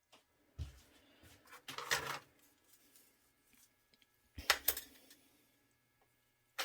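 Handling noise as the phone recording is set on its stand and small parts are handled: a low bump about half a second in, some rubbing around two seconds, and a short clatter of small hard objects about four and a half seconds in.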